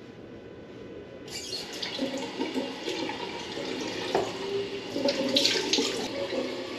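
A bathroom sink tap comes on about a second in and runs into the basin, with irregular splashing as water is scooped up to the face.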